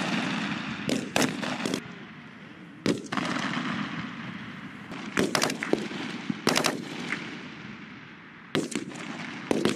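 Rifle fire: about a dozen sharp shots in irregular singles and quick pairs, each with a short echo trailing it.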